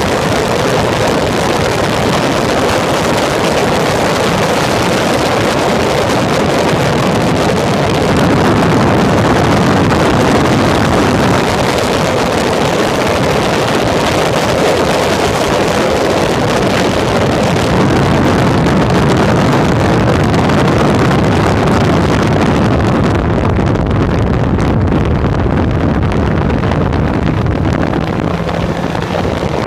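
Onboard sound of an open-cockpit Peugeot racing prototype at speed: the engine running under heavy wind rush on the microphone. Near the end the wind noise eases as the car slows for a corner.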